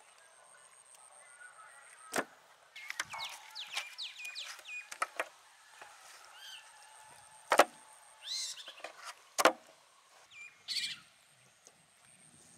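Wet slaps and sharp knocks from marinated rabbit carcasses being handled on a metal tray, three of them standing out, the loudest near the middle. Birds call around them with runs of quick falling chirps, over a faint steady high whine.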